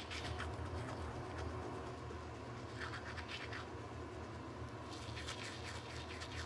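Manual toothbrush scrubbing teeth: quick, scratchy back-and-forth strokes that come in clusters and get busier in the last second or so, over a steady low hum.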